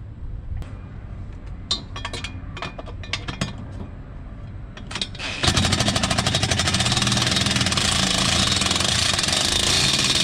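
Scattered clicks and knocks of parts being handled. About five and a half seconds in, a DeWalt cordless impact driver starts hammering steadily, running in the mounting bolt of a new alloy coolant header tank, and stops suddenly near the end.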